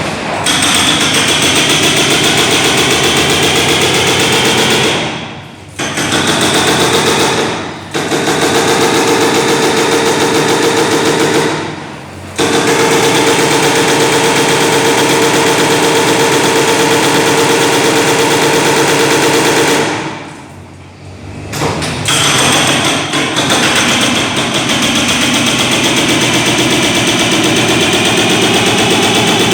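Demolition breaker hammering rapidly in long runs, stopping briefly four times, most clearly for a second or so about two-thirds of the way in.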